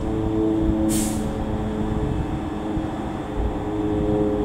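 Class 350 Desiro electric multiple unit standing at the platform, its onboard electrical equipment giving a steady hum, with a short hiss about a second in.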